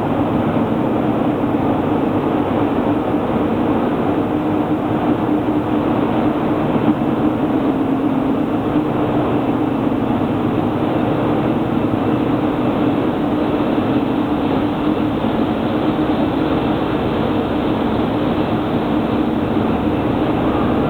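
Steady, loud drone of industrial plant machinery with a strong low hum, unchanging throughout.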